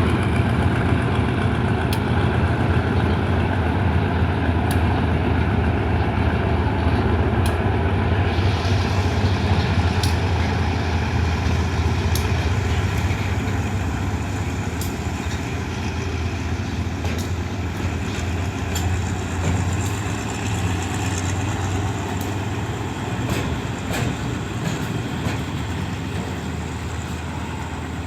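Diesel train engine running with a steady low drone that slowly fades, with sharp wheel clicks over rail joints coming more often in the second half.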